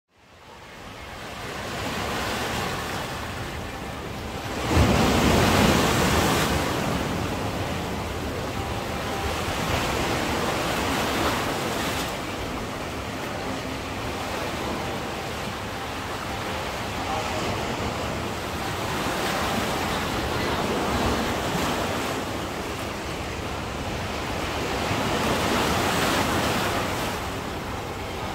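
Sea waves breaking and washing up the shore: a steady rush of surf that swells and ebbs every few seconds, with the loudest break about five seconds in.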